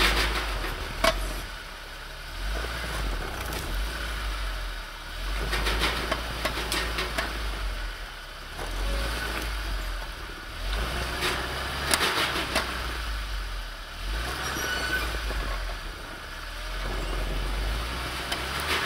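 UAZ Patriot SUV's engine revving in repeated surges a few seconds apart as the vehicle strains to climb out of a deep snow rut.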